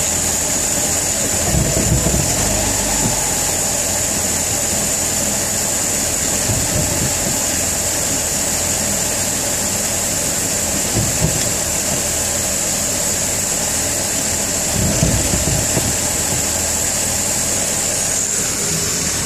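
BMW E46 engine running steadily in gear, with a steady high whine and a few short low thumps: the rear-end clunking that the owner traces to the propshaft or differential, and that stops the rear wheels turning.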